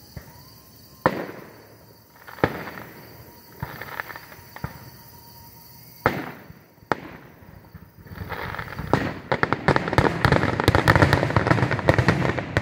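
Aerial fireworks shells bursting: sharp single bangs about once a second for the first seven seconds, then from about eight seconds in a dense, rapid run of overlapping bangs and crackles.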